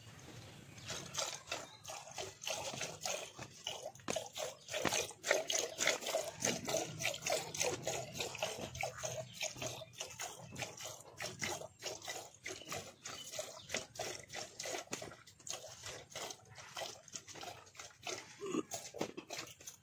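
Cow being milked by hand into a metal pail that already holds milk: rhythmic squirts of milk hitting the froth in the pail.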